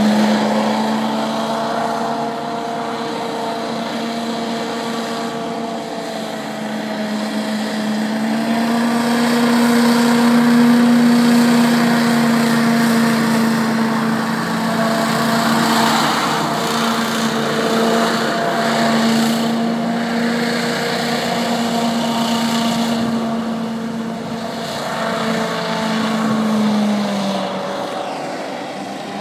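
Small recreational hovercraft's engine and thrust fan running at speed, a steady hum whose pitch wavers a little. It is loudest about ten seconds in as the craft passes close, then fades somewhat as it moves away near the end.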